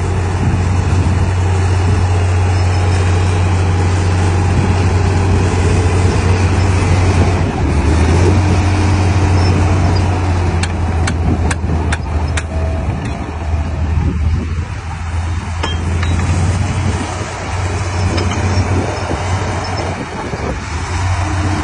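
Komatsu D58P crawler bulldozer's diesel engine running steadily while the machine works, with several sharp metallic clinks about halfway through.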